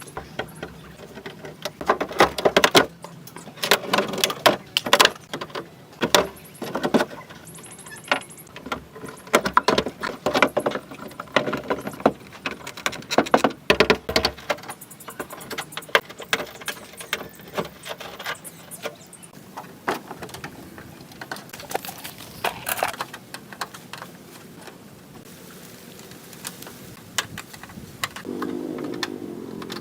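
Irregular metallic clinking and knocking of tools and parts being handled, coming in quick clusters for most of the stretch and thinning out towards the end, with a brief pitched hum near the end.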